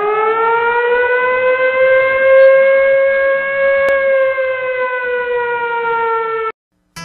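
Warning siren sounding one long tone that rises, holds steady, sags slightly and cuts off abruptly shortly before the end.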